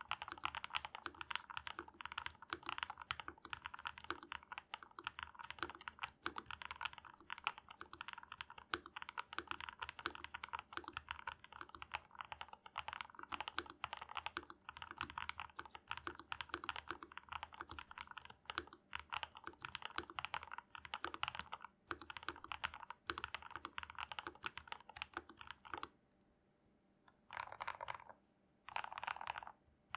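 Typing on a Dareu A87 mechanical keyboard with Gateron Milky Yellow Pro linear switches and PBT keycaps, in fast, continuous keystrokes. Near the end the typing stops for about a second and a half, then comes back in two short bursts.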